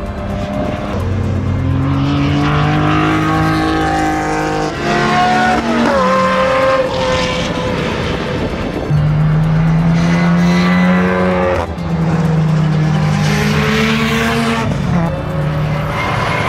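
Race cars accelerating past on a circuit, one after another. Their engines rev up through the gears, with the pitch dropping sharply at each upshift, about three times in all.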